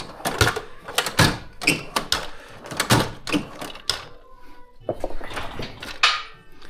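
Irregular clatter and knocks of metal tools and hardware being handled and rummaged through, some clicks ringing briefly.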